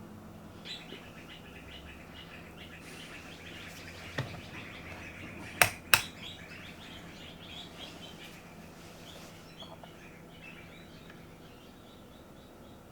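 Birds chirping and twittering in the background, with a steady low hum underneath. Two sharp clicks come about halfway through, just under half a second apart.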